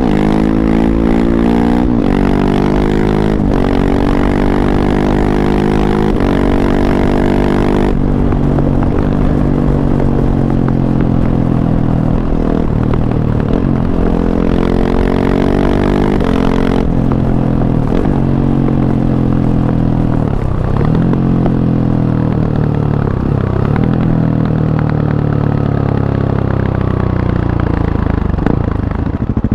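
KTM 690 SMC-R's single-cylinder engine through an Arrow Race-Tech exhaust with its dB killer fitted, accelerating up through several gears. The pitch climbs and drops back at each shift over the first eight seconds, then holds and slowly falls as the bike eases off.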